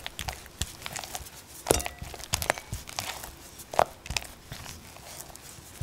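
Silicone spatula mixing softened butter in a glass bowl: soft sticky squelching and scraping, with irregular clicks where the spatula meets the glass and two louder knocks near two and four seconds in.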